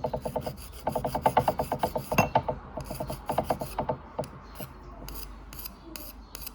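Small abrasive sharpening stone rasping against the steel prongs of a pole-spear paralyzer tip in quick short strokes, about ten a second, slowing to sparser, fainter strokes after about four seconds.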